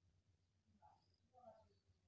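Near silence: room tone, with two faint short sounds, a little under a second in and about a second and a half in.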